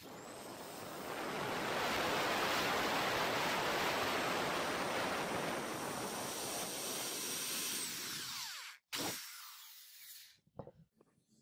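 Electric hand drill boring a hole through a wooden knife-handle scale: a steady high motor whine over the rasp of the bit cutting wood. It winds down about eight seconds in, and a brief second burst follows and fades.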